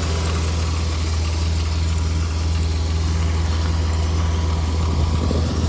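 1995 Dodge Dakota's fuel-injected engine idling steadily with the hood open, a low even hum with no change in speed, while it warms up toward operating temperature.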